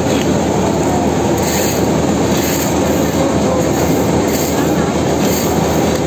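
Asphalt paver's engine and paving machinery running steadily as asphalt is laid, a loud, even mechanical noise.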